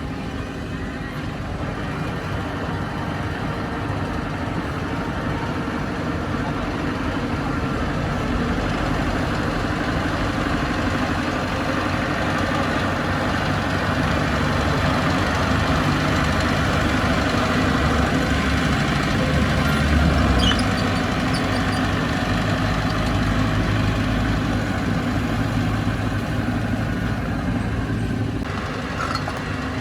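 Heavy diesel earthmoving machinery running steadily. The engine works harder and grows louder toward a peak about two-thirds of the way through, then eases off a little.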